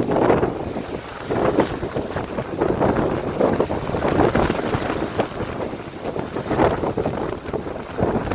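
Sea waves rushing and breaking against the hull of a cruise ship, with wind buffeting the microphone in uneven gusts.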